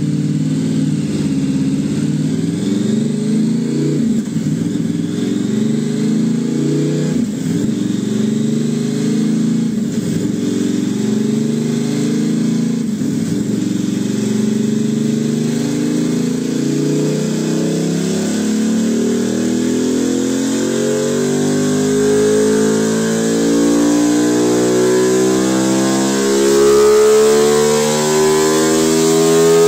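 Aprilia 660 parallel-twin motorcycle engine through a ZIIV Project aftermarket exhaust, running on a roller dyno. The revs rise and fall several times, then climb in one long, steady rise through the second half, a pull under load.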